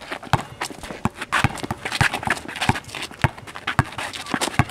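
A basketball dribbled on a hard outdoor court, a sharp thud about every half second, with shoes scuffing on the surface between bounces.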